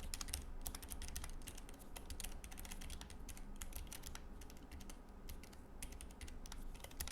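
Typing on a Keychron K3 low-profile mechanical keyboard: a rapid, uneven run of key clicks.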